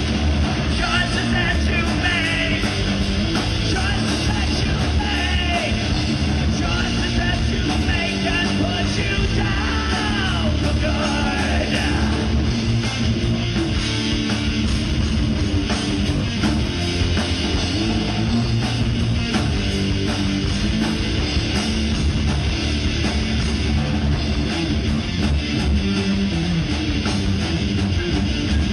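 Live heavy rock band playing loud, with electric guitar to the fore over a dense, steady wall of sound.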